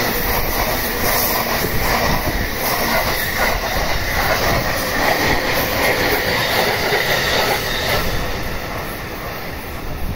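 Electric commuter train running past close by at speed: steady wheel and track rumble with the rhythmic clack of the wheels over rail joints. The noise eases off about eight seconds in as the last cars pass and draw away.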